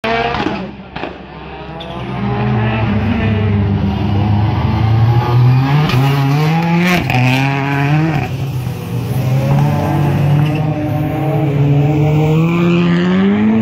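Rallycross car engines racing on a dirt track, revving hard. The pitch climbs and drops back sharply at each gear change, notably around seven and eight seconds in.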